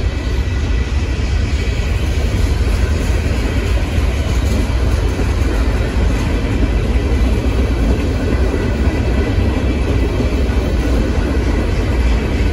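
Freight cars of a CSX freight train rolling past close by: a steady rumble of steel wheels on rail, with a faint high whine held through it.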